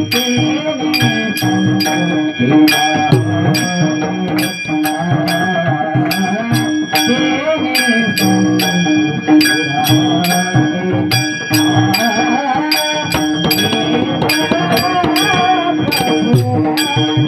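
Varkari kirtan music: a singer's voice wavering over a steady harmonium drone, with small hand cymbals (taal) struck in an even beat of about two or three strokes a second.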